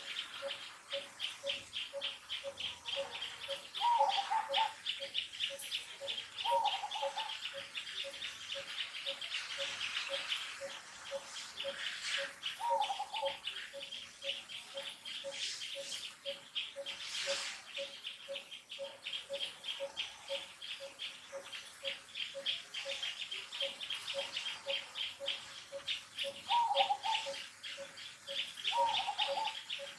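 Woodland insect and bird ambience: a fast, steady pulsing insect trill, a lower tick repeating about twice a second, and a few short calls, two early on and two near the end.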